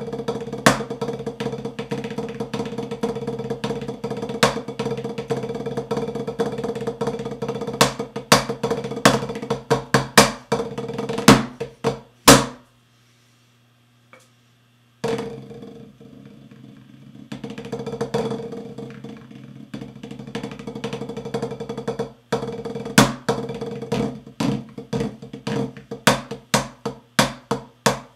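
Marching snare drum played solo with fast rudimental stickings and rolls punctuated by loud accented strokes, the head ringing under the sticking. The playing stops for about two seconds near the middle, resumes softer, then builds back to a run of loud, evenly spaced accents near the end.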